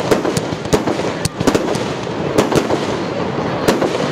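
Aerial fireworks: shells launching and bursting in quick, irregular succession, about ten sharp bangs and cracks in four seconds over a steady noisy background.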